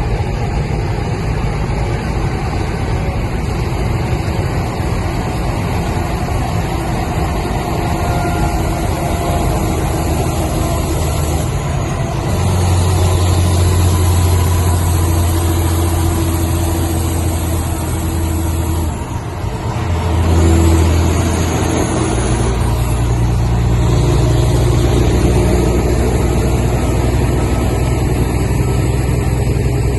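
A vehicle's engine running steadily. Its low hum grows louder about twelve seconds in, drops briefly near nineteen seconds, then holds at the higher level.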